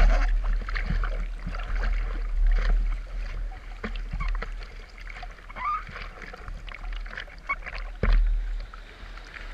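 Seawater splashing and sloshing against a surfboard as it is paddled prone through whitewater, with the hand strokes making short irregular splashes and a sharper one just past eight seconds. A steady low rumble of water and wind on the board-mounted microphone runs underneath.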